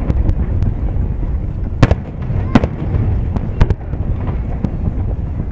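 Aerial firework shells bursting: a run of sharp bangs, the loudest about two and two and a half seconds in, over a steady low rumble of booms.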